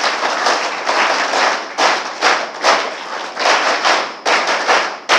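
Audience applause in a hall, the clapping falling into a rhythmic beat of about two claps a second.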